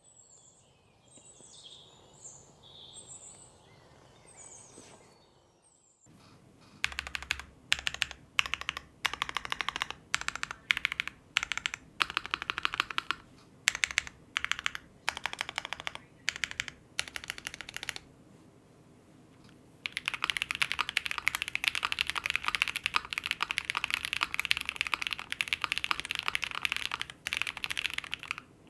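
Typing on an ai03 Vega custom mechanical keyboard with lubed Tecsee Ice Candy switches and GMK double-shot ABS keycaps. Faint chirps come first, then the keystrokes arrive in short bursts with pauses between them, and about two-thirds in they become continuous fast typing.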